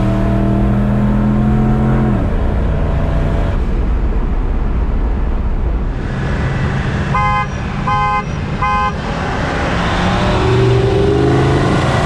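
Ford F-150 5.4 V8 pickup accelerating hard. The engine's pitch rises, then drops off about two seconds in, leaving road and wind noise. A horn gives three short toots near the middle, and the engine pulls up in pitch again near the end.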